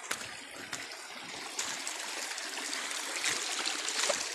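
A small stream running and trickling over rocks, a steady rush of water that grows a little louder near the end.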